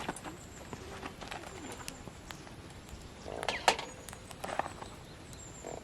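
Campfire crackling: scattered sharp pops and snaps from the burning wood, with a louder cluster of pops about three and a half seconds in.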